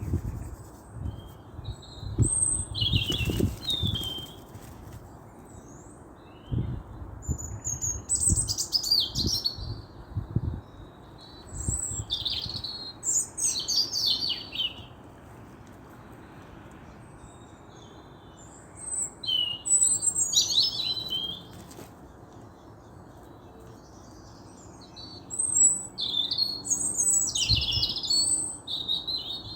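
Small songbirds chirping and twittering in short bursts of a few seconds, separated by quieter gaps, over a steady background hiss. Low thumps come and go, mostly near the start and near the end.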